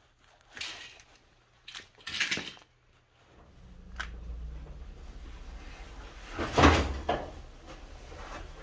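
A few short knocks and scrapes, then a low steady hum, with a thump and shuffling about two-thirds through as a person climbs into a bare steel truck cab.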